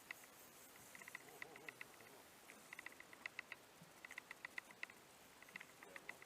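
Faint, sharp clicks in short irregular clusters, a few clicks at a time, over near silence.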